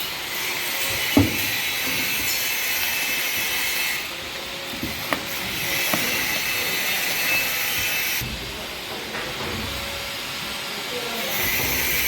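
A steady hiss that cuts out and comes back twice, with a few light knocks, the sharpest about a second in.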